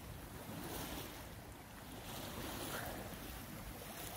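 Wind buffeting the microphone over the steady wash of water along the hull of a J133 sailboat running under spinnaker.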